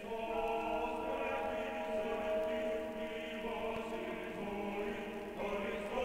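Choir chanting in long held chords, in the style of a Russian Orthodox church chant, moving to a new chord twice.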